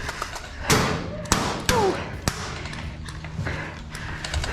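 Airsoft gunfire: four or five sharp cracks and thuds in the first two and a half seconds. A short call falls in pitch about two seconds in.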